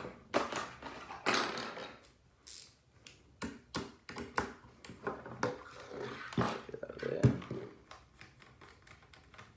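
Handling noise from a plastic gel blaster rifle and a ratchet screwdriver: scattered clicks and knocks, a brief rustle, and the sharpest knock about seven seconds in. Faint quick ticks follow near the end as the screwdriver is set to the receiver bolt.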